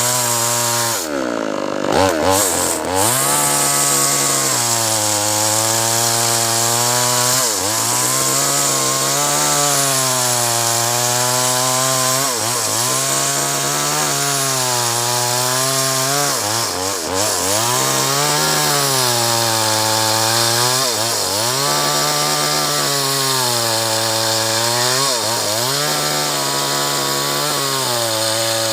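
Two-stroke chainsaw cutting acacia timber, the engine running near full throttle, its pitch sagging and recovering every few seconds as the chain bogs into the wood and frees up again.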